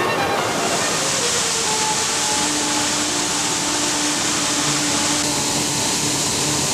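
Mountain-stream water rushing over rocks: a steady, loud hiss that swells about half a second in and holds, with faint sustained notes of background music beneath.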